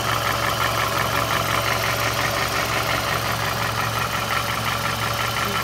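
2007 Toyota Camry's 2.4-litre four-cylinder engine idling with a rapid, steady ticking from the top of the engine. The mechanic traces the tick to a noisy exhaust valve lifter.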